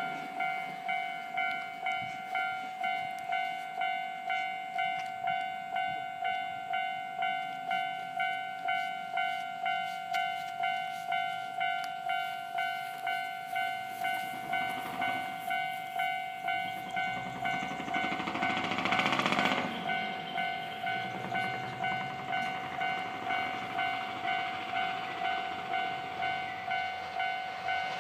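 Japanese level-crossing warning bell ringing steadily, about three dings every two seconds. Partway through, a 283 series diesel limited express train passes, its noise swelling to a brief peak and fading again while the bell keeps ringing.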